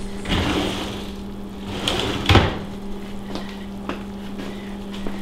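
Handling knocks on a wooden butcher-block counter, including a kitchen knife being laid down; the loudest is one dull thump a little over two seconds in. A steady low hum runs underneath.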